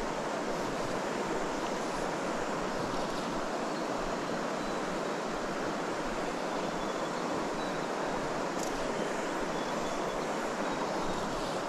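Shallow, clear river running steadily over a stony bed, a constant rush of moving water.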